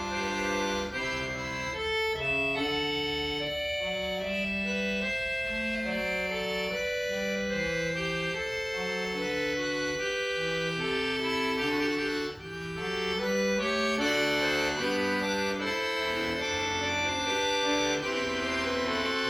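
Accordion playing a piece, a melody over a moving bass line, with a brief break in the sound about twelve seconds in.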